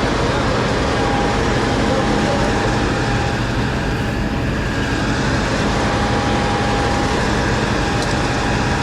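Fire engine's motor and pump running steadily at raised revs: a loud, even drone with a steady whine over it.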